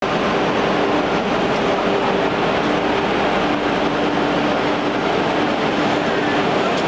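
Long-bed grinding machine running: a steady mechanical noise with a constant low hum from its grinding-head motor.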